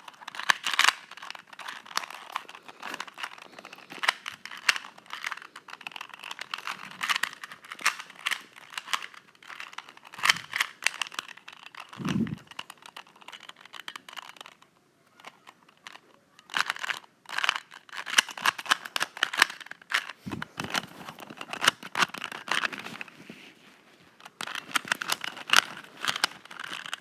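ShengShou 2x2x2 speed cube being turned quickly by hand: a dense, fast run of plastic clicks and clacks from the layers turning. It stops briefly about halfway through, then starts again.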